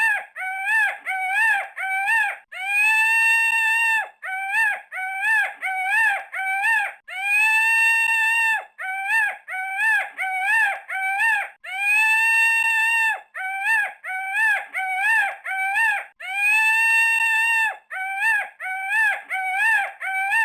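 A bird calling over and over: a long held note, then a quick run of short rising-and-falling notes, the pattern repeating about every four and a half seconds.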